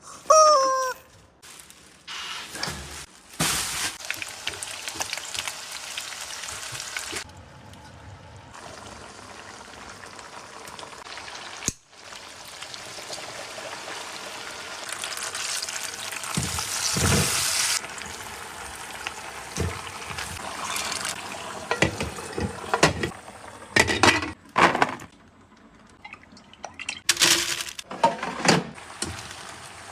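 Kitchen cooking sounds: long stretches of steady hiss, like food sizzling in a pan or water running, then a series of separate clinks and knocks of utensils and dishes.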